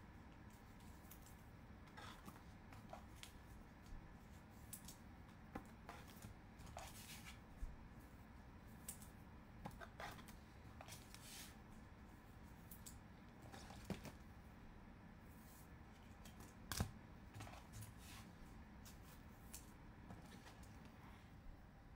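Faint rustling and clicking of Bowman baseball cards and foil pack wrappers being handled and flipped through, in scattered short ticks, with one sharper tap about three-quarters of the way through.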